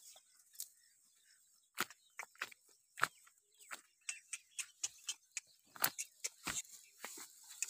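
Irregular crackling and snapping of leaves and twigs, starting after about a second and a half and growing busier toward the end, as a donkey feeds in the brush.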